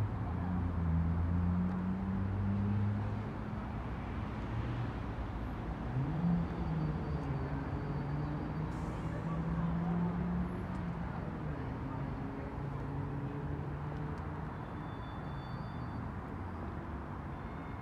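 Street traffic noise with the low hum of passing car engines, which swells near the start and again about six seconds in, then fades to a steady background.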